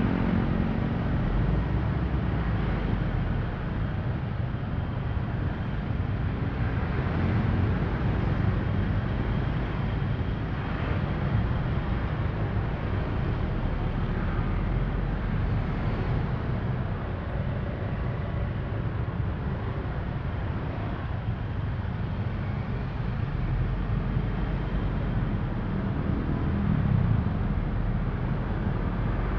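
Steady low rumble of dense, slow-moving road traffic, with motor scooter and car engines close around.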